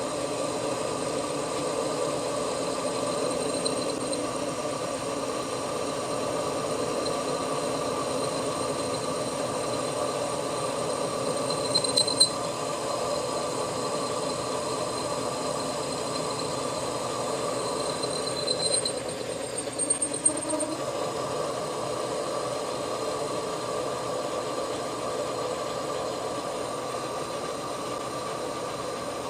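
Metal lathe running steadily with a tool bit cutting a small steel pin, with a brief high squeal from the cut about twelve seconds in and again a few seconds later.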